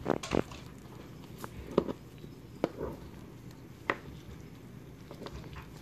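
Fillet knife cutting and tapping against a plastic cutting board while gloved hands trim pin bones from a crappie fillet: a few scattered sharp clicks and soft wet taps.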